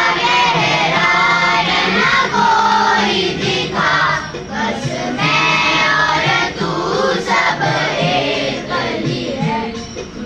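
A large group of children singing a prayer together, in sung phrases with short breaks between them.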